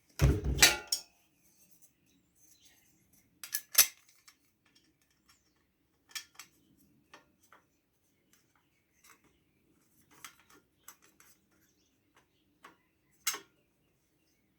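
Small metal engine parts and tools clinking and tapping now and then as they are handled and searched through, with a louder clattering knock right at the start.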